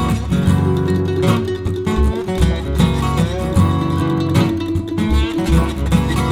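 Background music led by plucked acoustic guitar over a steady bass line and beat.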